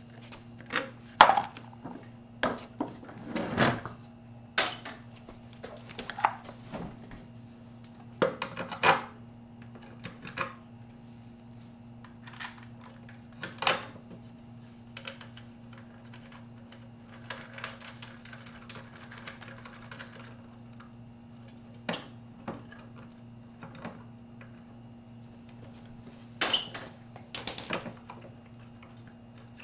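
Irregular metallic clicks, clinks and knocks from handling a lawn mower wheel on its axle and the bolt behind it, several close together near the start and again near the end. A steady low hum runs underneath.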